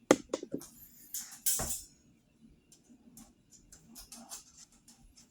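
Parts of a table fan being handled during reassembly: a few sharp knocks at the start and a short rustle about one and a half seconds in, then faint light clicks.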